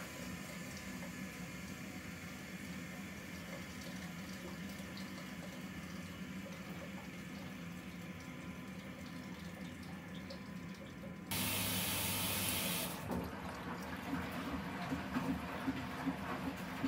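Nortec Primus P6 commercial washing machine mid-wash: a steady hum of the running machine, then about eleven seconds in a sudden rush of water filling in for under two seconds that stops sharply. Irregular knocks and splashes of the wet load tumbling follow near the end.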